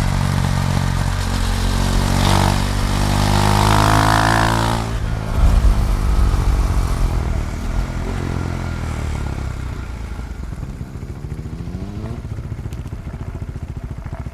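KTM Duke 390's single-cylinder engine under way: the pitch climbs briefly, then falls away in a long downward sweep as the bike slows, settling into an uneven idle near the end.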